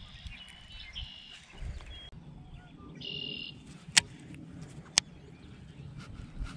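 Birds calling outdoors in short whistled phrases, over a low rumble of wind or handling noise. Two sharp clicks about a second apart, the loudest sounds, come near the middle.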